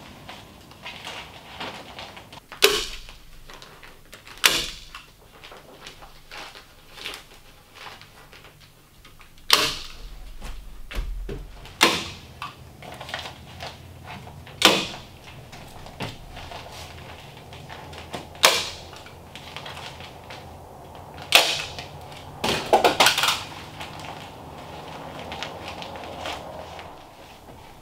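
Hand staple gun firing staples through the kraft-paper facing of fiberglass floor insulation into wooden joists. It gives sharp snaps a few seconds apart, about seven single shots, then a quick run of three near the end.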